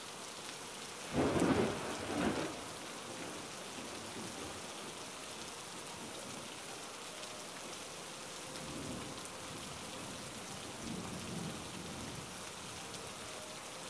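Steady rain with rolling thunder: a loud rumble about a second in, and softer rumbles later on.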